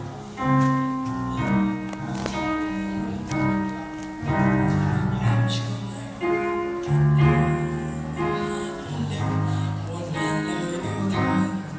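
A band playing an instrumental passage: held chords over a moving bass line, with no singing.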